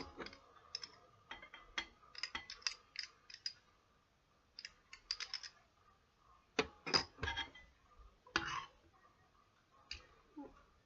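Sticky glue-and-borax slime being mixed and worked, making quick irregular clicks and squelches in clusters, with a few longer smacking squelches in the second half.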